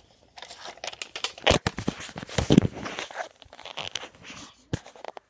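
Loud close rustling and crinkling with many quick clicks and knocks. It starts about half a second in, is loudest around the middle, and ends with a sharp knock.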